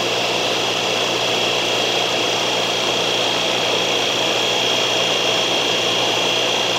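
Taiwan Railways local electric multiple unit standing at the platform, its onboard equipment running with a steady whir and a steady high whine.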